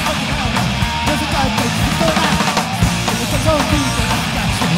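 Punk rock band playing a song live, with drums and electric guitar loud.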